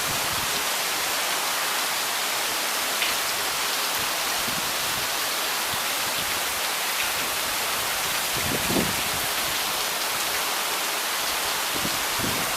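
Steady rain falling, an even hiss with a few louder drops or splashes about three seconds in and again near nine seconds.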